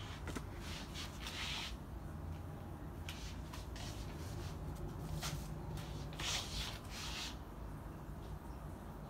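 Rustling and rubbing of hands handling a phone near its microphone, in a few short scuffs over a faint, steady low rumble of room noise.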